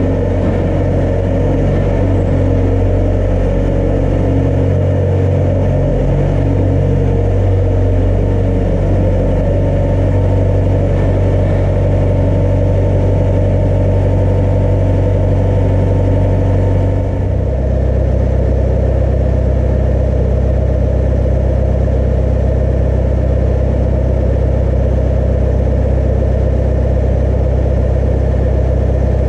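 A motor running steadily with a low hum, settling to a lower pitch about 17 seconds in.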